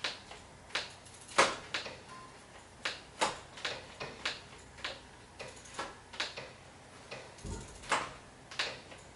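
Bicycle rear wheel being spun to check a freshly centred rim brake, giving a dozen or so sharp ticks at uneven spacing; the rim is running clear of the brake pads, not catching.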